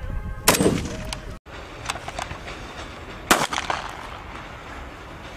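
Two separate gunshots, each followed by a short echo: a shot from a scoped Dragunov-type rifle about half a second in, then a louder single pistol shot past the middle. A few faint clicks fall between them.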